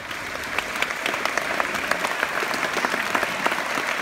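A large audience applauding, many hands clapping at once; the applause swells up just as it begins and then holds steady.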